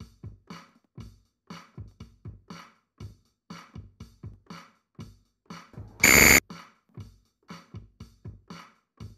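Quiz countdown-timer track: a quick electronic beat of short, evenly repeated hits. About six seconds in comes a loud half-second buzzer tone, the signal that time is up.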